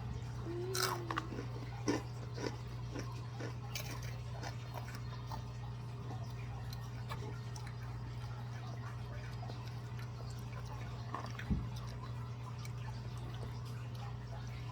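Scattered crunches of Takis rolled tortilla chips being chewed, mostly in the first few seconds, over a steady low hum, with one louder knock late on.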